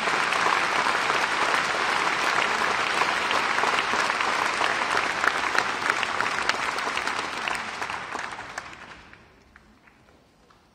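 Concert audience applauding, dense clapping that thins out and dies away about nine seconds in.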